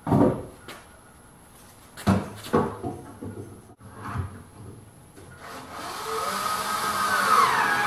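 Several sharp wooden knocks as the wing's wooden links are handled, then a cordless drill/driver runs for about two and a half seconds near the end, driving a screw to install a pillow block, its whine sagging in pitch as the screw draws tight.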